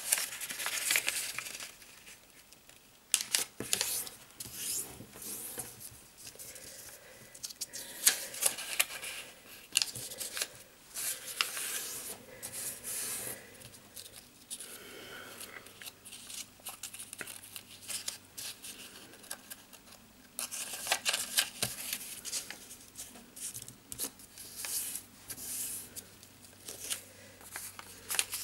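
A sheet of origami paper being folded and creased by hand: irregular crinkling and rustling, with sharp crackles as folds are pressed flat and a couple of short quieter pauses.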